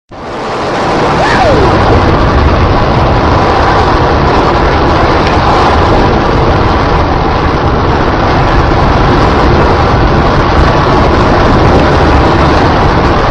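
Loud, steady roaring noise that starts abruptly and holds without a break.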